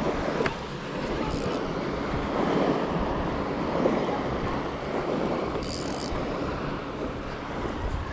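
Wind buffeting the microphone over the wash of small surf, with a couple of brief high-pitched whirs from a spinning reel as the line is cranked in against a hooked fish.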